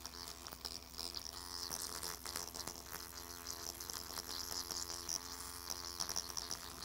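Motorized microneedling pen buzzing steadily as its vibrating needle cartridge is worked over the upper lip, with faint irregular ticks.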